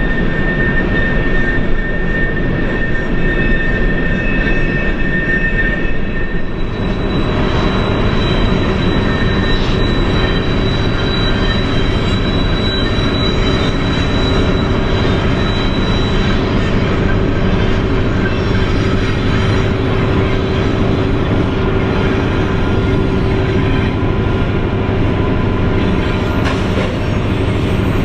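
Freight train rolling up a grade: diesel locomotives running under load with the steady rumble of empty coal cars on the rails. A steady whine runs through it, and the sound changes character about seven seconds in.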